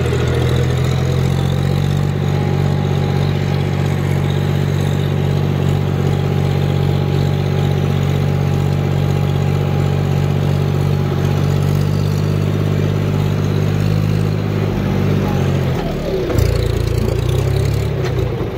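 Diesel tractor engine running steadily at one fixed speed. About fifteen seconds in, its pitch drops and the note changes.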